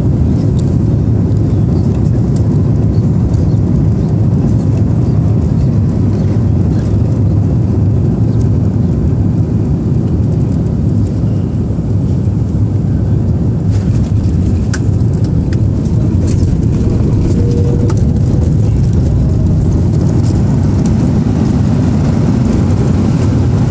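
Steady cabin noise inside an Airbus A330-200 with Rolls-Royce Trent 772B engines: a constant low engine and airflow rumble.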